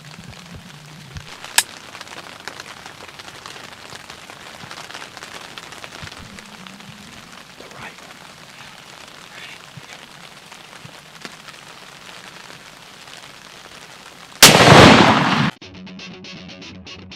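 Rain pattering steadily on a hunting blind, then a single muzzleloader shot about fourteen seconds in, by far the loudest sound, lasting about a second. Guitar music comes in right after it.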